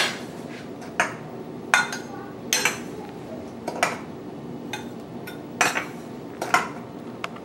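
A metal spoon scooping sugar out of a glass canister and tipping it into a glass measuring cup, clinking against the glass in sharp taps about once a second.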